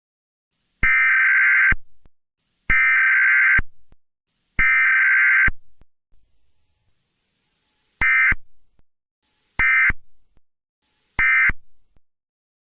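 Emergency Alert System Required Weekly Test: three SAME header data bursts of about a second each, then after a gap three short end-of-message bursts, with no attention tone or voice message between them. The bursts are the two-tone digital data that an alert carries.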